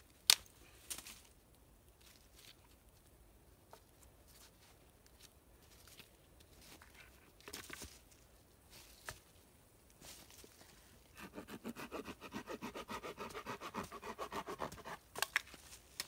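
Wooden branches and sticks being handled for a shelter frame: a sharp wooden knock just after the start, a few lighter knocks, then, past the middle, a fast run of clicks lasting about four seconds, ending with another knock.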